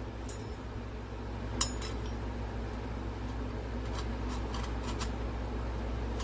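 Metal clutch parts clinking and clicking as they are handled, a scattering of light knocks with the sharpest about one and a half seconds in and a cluster of several near the end.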